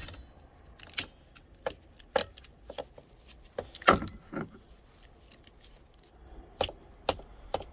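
Irregular sharp metal clicks and clinks of vice grips being worked on the nut of a rear hatch lock cylinder, the loudest about a second in and about four seconds in.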